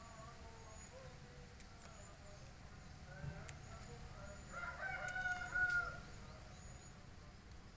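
A rooster crowing once, a single call of a little over a second, a little past halfway through.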